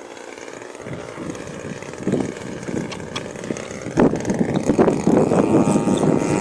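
Radio-controlled model aeroplane's engine and propeller, growing steadily louder and turning into a loud, rough rush over the last couple of seconds.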